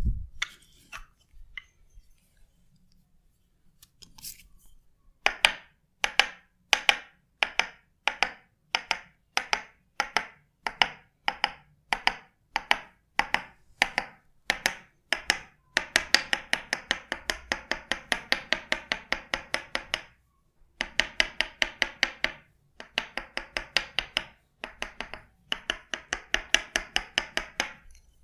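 Percussive massage strikes on the body: sharp taps about two a second, then several quick runs of rapid strikes separated by short pauses.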